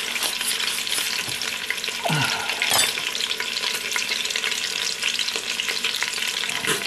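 Olive oil sizzling and crackling in an electric pressure cooker pot heated for browning pigtails, a steady hiss full of tiny pops. A short knock sounds about three seconds in.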